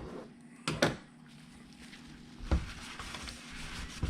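Handling knocks and clicks of a small plastic RC crawler's parts being worked on by hand, with two sharp knocks, one just under a second in and one about two and a half seconds in, and light rustling between.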